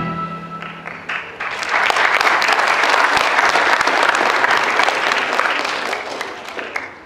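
A choir's final held chord dies away about a second in, then an audience applauds, building quickly, holding steady, and tailing off near the end.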